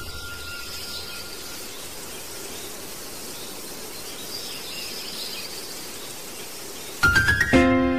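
Steady background noise with a few faint high chirps. About seven seconds in, music starts with a quick rising run of notes that settles into a held chord.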